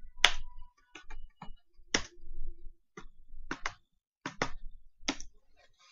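Computer keyboard being typed on: a dozen or so separate key clicks at an uneven pace.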